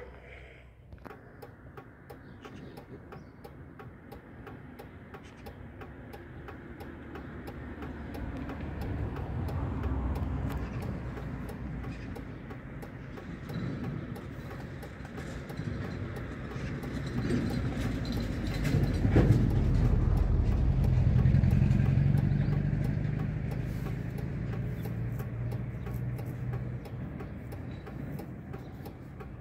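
A motor vehicle's engine rumble passing by, growing louder to a peak about two-thirds of the way through and then fading away.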